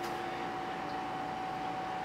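Toilet tank refilling just after a flush: a steady rush of water through the fill valve, with a faint constant tone.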